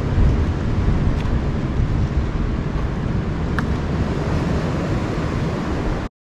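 Wind buffeting the microphone over the wash of surf against a rock ledge, with a couple of faint clicks. It cuts off suddenly near the end.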